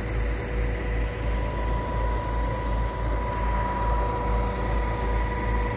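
Diesel engines of a boom-type concrete pump truck and a ready-mix truck running steadily: a deep, even rumble with a constant high whine over it.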